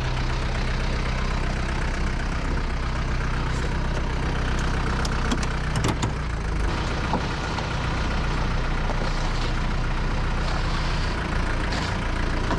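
Ready-mix concrete truck's diesel engine running steadily at idle, with a few sharp clanks about halfway through.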